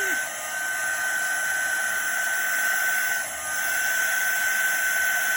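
Craft heat gun running steadily, a rush of blown air with a high steady whine, its level dipping briefly twice.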